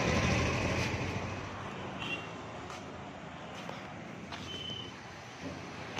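Street traffic noise, a steady rush, with two brief high-pitched beeps from vehicles about two and a half seconds apart.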